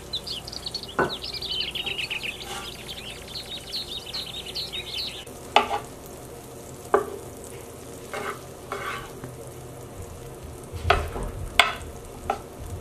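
Butter melting and sizzling in a nonstick frying pan, stirred with a wooden spatula that knocks and scrapes against the pan in a series of sharp taps. High chirping runs through the first five seconds.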